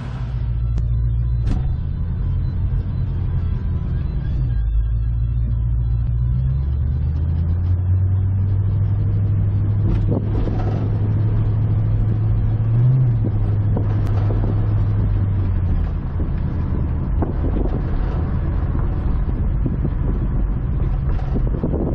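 1973 Mustang's 302 small-block V8 heard from inside the cabin through an NPD 2 1/4-inch aluminized turbo-muffler exhaust with H-pipe, running with a low, steady drone. The note climbs a few seconds in, peaks briefly about halfway and drops back about two-thirds of the way through, as the car is put in gear and driven off at low speed.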